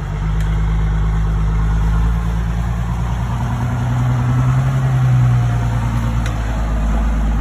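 Cummins 5.9-litre inline-six turbo diesel of a first-generation Dodge pickup running as the plow truck drives. It revs up, rising in pitch and loudness about halfway through, then eases off again.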